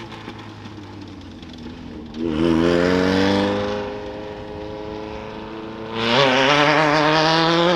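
Two off-road race vehicles launching from the start line one after the other, each engine revving hard with a rising note: the first about two seconds in, fading away after a second or so, the second about six seconds in. A lower engine idles steadily in between.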